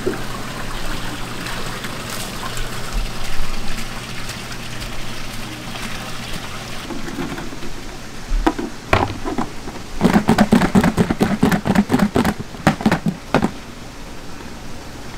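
Knife chopping on a cutting board while fish or squid is sliced into sashimi: a few strokes, then a rapid run of several strokes a second for about three seconds in the second half, over a steady hiss.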